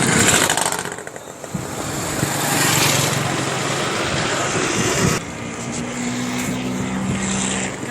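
Road traffic going by: vehicle engines humming and tyre noise rising and falling as cars pass, with a drop in level about five seconds in.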